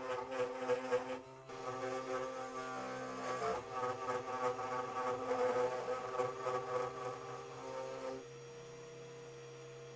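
Two Trees TTC450 CNC router's spindle motor running with a steady whine while its thin end mill cuts into a wooden board, with rough cutting noise over the whine. Its pitch bends briefly under load about halfway through. Near the end the cutting noise drops away, leaving only the steady motor hum.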